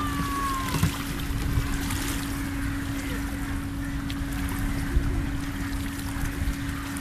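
Rotating kiddie boat ride running: a steady low hum from the ride's drive over the rumble and swish of water around the boats. A short high falling tone sounds at the very start.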